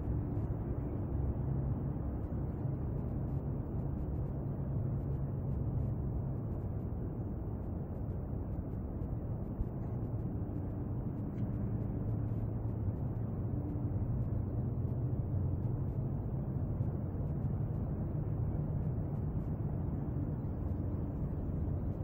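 Steady low rumbling background noise with a faint hum, unchanging throughout, with no distinct events.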